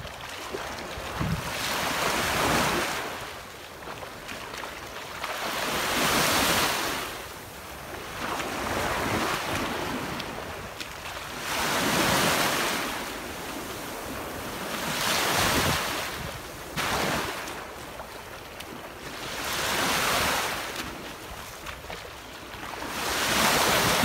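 Small ocean waves washing into the shallows at the shore, the rush of water swelling and fading about every three to four seconds, with wind rumbling on the microphone.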